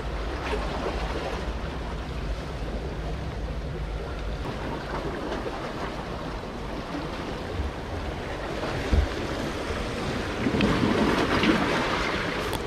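Sea waves washing and splashing among the concrete tetrapods of a breakwater, with wind buffeting the microphone as a low rumble. The wash swells louder about ten seconds in. There is one short knock a little before that.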